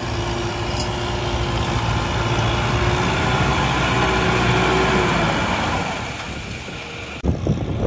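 Kubota M6040 tractor's diesel engine running under load as it churns a tilling implement through flooded paddy mud close by, with a steady whine over the engine note. The sound swells, fades after about five seconds, then changes abruptly near the end to low gusts like wind on the microphone.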